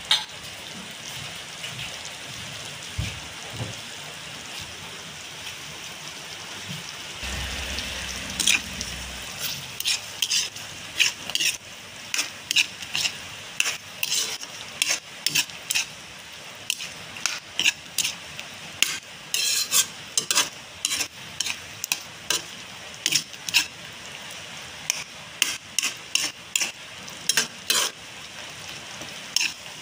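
Squid in coconut milk simmering in a pan with a steady sizzling hiss. From about eight seconds in, a ladle stirs it, clinking and scraping against the pan again and again, about twice a second.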